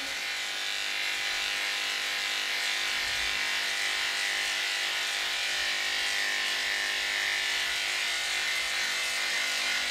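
Electric dog grooming clippers fitted with a number 7 blade, running with a steady hum as they clip a poodle's coat.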